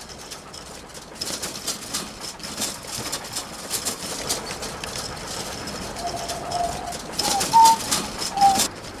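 Metal shopping cart rattling and clattering as it is pushed over a snowy surface. In the last few seconds short high squeals come in, several at slightly different pitches.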